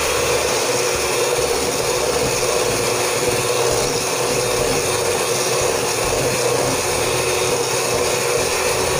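Contempo electric hand mixer running steadily at one speed, its beaters whisking egg yolks, sugar and grated orange peel in a stainless steel bowl.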